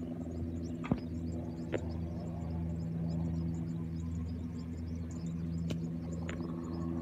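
Steady drone of a PZL W-3 Sokol helicopter, a hum made of several even low tones, with faint high chirping over it.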